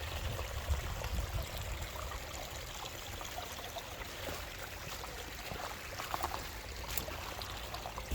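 Storm runoff water running and trickling steadily, rainwater flowing over the ground and out of gopher holes as it erodes the soil.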